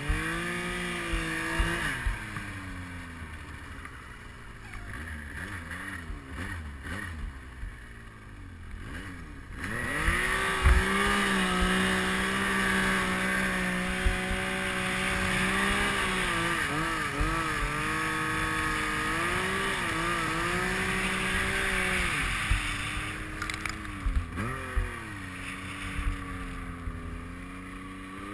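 Yamaha Nytro snowmobile's four-stroke triple engine working through deep powder at changing throttle. It runs lower and quieter for the first several seconds, revs up about a third of the way in and holds there with small wobbles, then eases off, with a brief blip near the end.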